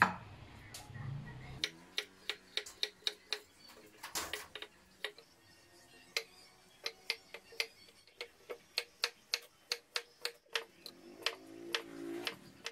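Cleaver chopping carrot on a wooden cutting board: a steady run of sharp knocks, about three a second, with a short pause midway.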